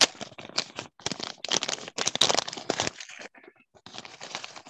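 Clear plastic packaging bag crinkling and rustling as it is handled and opened close to the microphone, in irregular spurts with a short pause a little past three seconds in.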